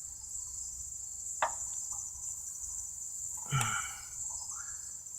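Steady high-pitched chirring of crickets, with a single sharp click about a second and a half in.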